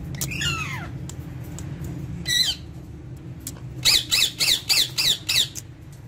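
Indian ringneck parakeet squawking: one falling call near the start, a short screech about two seconds in, then a rapid run of six sharp, loud screeches near the end.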